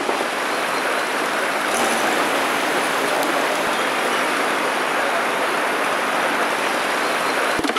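A shallow rocky stream rushing over stones: a steady, even rush of water that cuts off shortly before the end.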